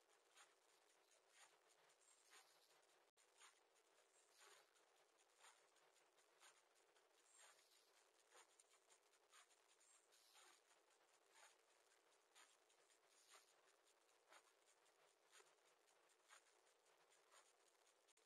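Near silence: faint hiss inside a small wooden nest box, with a faint, regular tick about once a second.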